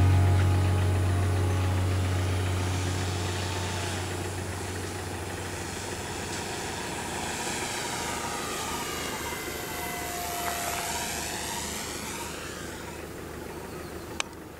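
Small propeller-driven UAV flying past: motor and propeller noise with the sweeping, phasing whine of a flyby that swells about ten seconds in and then fades away. A single sharp click near the end.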